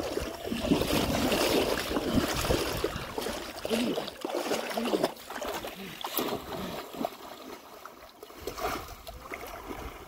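Shallow river water sloshing and splashing as a person moves through it, louder in the first few seconds and then settling to a softer wash.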